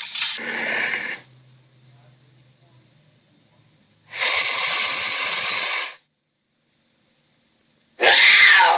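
Tiger snarling: three harsh, hissing snarls, each lasting one to two seconds, with quiet pauses between them. The last one, near the end, drops in pitch.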